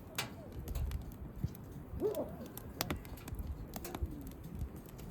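Campfire crackling with scattered sharp pops, and a dog giving a short whine about two seconds in, with a fainter whimper near the end.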